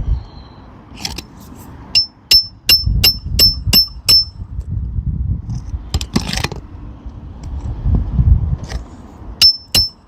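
A hammer driving a roofing nail through a shingle: a quick run of about seven sharp, ringing metal strikes, a scrape about six seconds in, then three more strikes near the end.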